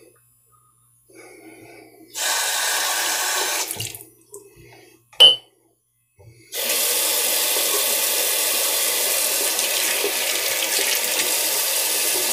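A faucet running into a sink: a short run of water, a sharp clink about halfway through, then the tap running steadily through the second half.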